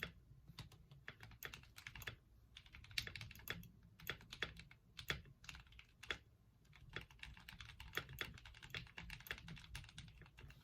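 Typing on a mechanical keyboard with Krytox-lubed Gateron Milk Black linear switches: fast, uneven runs of key clacks.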